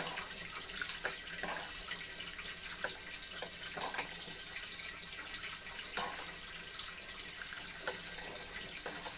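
A ladle stirring thick radish sambar in an aluminium pressure-cooker pot, the liquid sloshing, with a few separate scrapes and taps of the ladle against the pot over a steady hiss.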